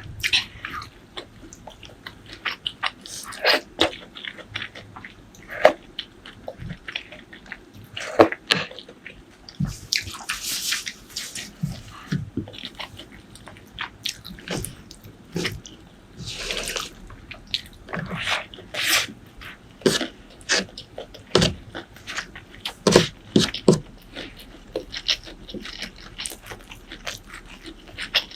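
Close-miked eating sounds: chewing with many short wet mouth clicks and smacks, and a couple of longer hissy, wet sounds about ten and sixteen seconds in.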